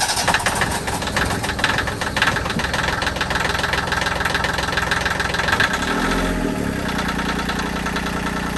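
Volvo Penta MD2030 three-cylinder marine diesel running steadily just after starting up.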